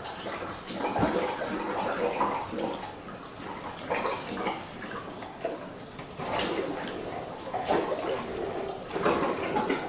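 Water sloshing and splashing in a pedicure spa basin as a rubber plunger is pumped hard over its drain, with the tap left running. The uneven surges are the plunger forcing sand and sediment through the shared drain line.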